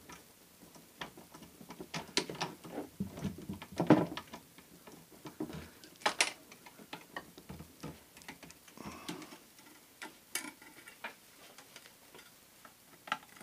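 Guitar strings being taken off by hand: irregular light clicks and ticks of string ends and metal hardware being handled, with a few sharper taps.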